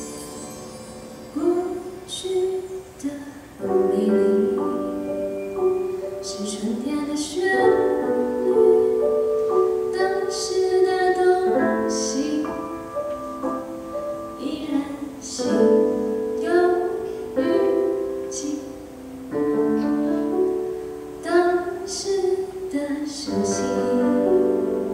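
A woman singing a song in Mandarin into a microphone over piano accompaniment. Her voice comes in about a second in, in phrases over held piano chords.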